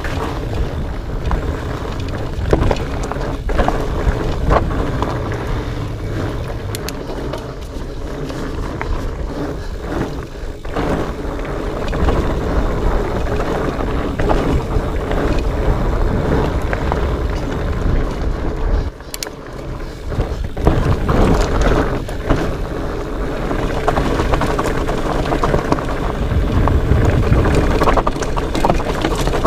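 Fat bike riding over rocky singletrack: a steady low rumble of wind on the microphone and tyre noise, with scattered knocks and rattles from the bike.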